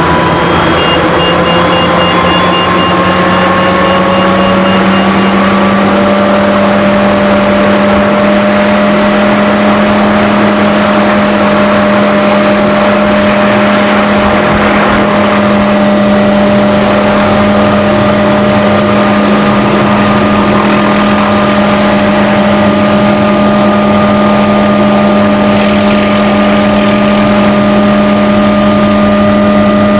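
Hughes 500-type turbine helicopter heard from inside the cabin, loud and steady. Its turbine whine rises in pitch over the first several seconds as it spools up to flying speed, then holds steady as the helicopter lifts off and climbs.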